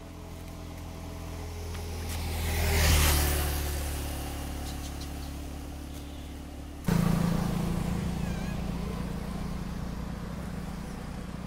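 A road vehicle passing close by, its noise rising to a peak about three seconds in and then fading, over a steady low engine hum. About seven seconds in the sound cuts abruptly to a louder steady engine hum that slowly fades.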